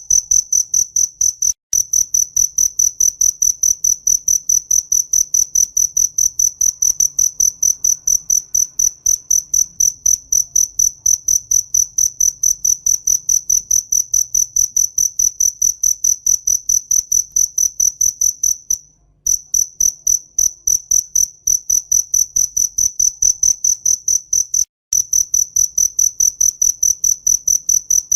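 A cricket chirping in a fast, even rhythm on one high, clear pitch, broken off briefly a few times.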